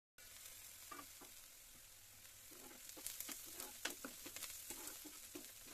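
Chopped onions and green chillies sizzling faintly in oil in a nonstick pan while being fried to light brown, with scattered light scrapes and taps of a steel spoon stirring them, more frequent in the second half.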